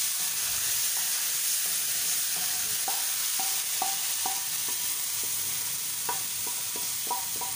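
Tadka of hot oil and fried masala poured into a pot of beef haleem, sizzling with a steady loud hiss and scattered small pops and clicks.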